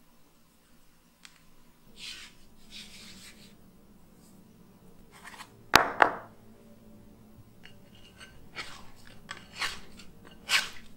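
Hands working bread dough in a glass mixing bowl: soft rustling and scraping of flour and dough, a sharp double knock just before the middle, then several quick scrapes of a dough scraper around the inside of the glass bowl near the end.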